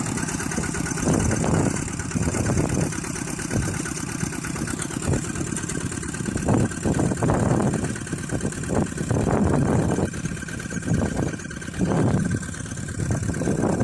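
An engine running at low speed, with uneven surges in loudness.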